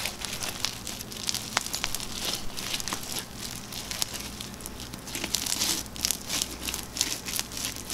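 Fishbowl slime, clear slime packed with small plastic fishbowl beads, being squeezed and pressed by hand. It gives a steady run of dense, crunchy crackles.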